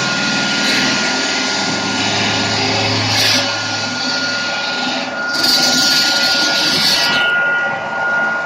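Liomax stone-cutting saw with a diamond blade running, a steady high whine over loud motor noise, with a burst of sharper hiss lasting about two seconds past the middle.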